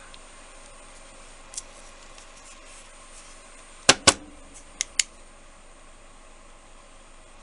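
Four sharp clicks of hard objects being handled, two loud ones close together about four seconds in and two lighter ones about a second later, over a steady background hiss.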